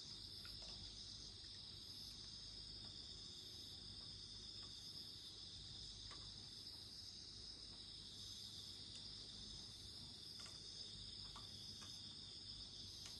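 Night chorus of crickets: a steady high trill, with a second, higher insect call pulsing at an even rhythm, and a few faint scattered crackles.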